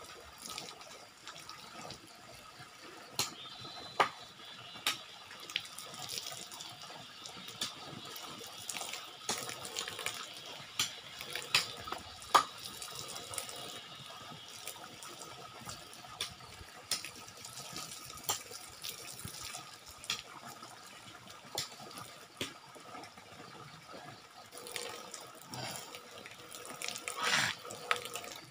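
Running water falling from a spout onto a bathing person and splashing on a bamboo-slat floor, with a steady hiss and many short, sharp splashes scattered through it.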